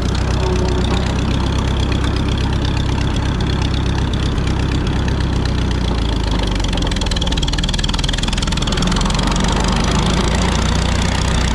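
Minneapolis Moline ZB tractor's four-cylinder engine running steadily while the tractor is driven, its note shifting slightly about halfway through.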